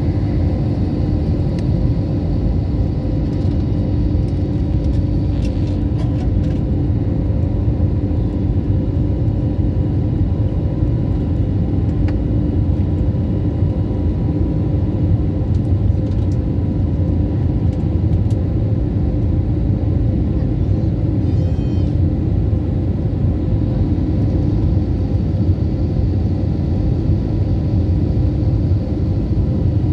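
Steady rumble of a jet airliner's engines and airflow heard inside the cabin, with a few steady tones over it.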